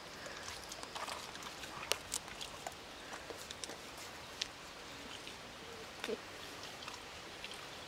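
A puppy chewing a treat: scattered faint clicks and crunches, with a few sharper ones about two seconds in and near six seconds, over a faint steady hiss.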